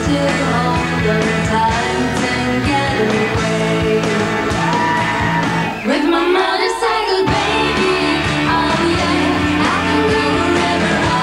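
Live rock band playing, with women singing over electric guitar, bass and drums. About six seconds in, the bass and drums drop out for roughly a second before the full band comes back in.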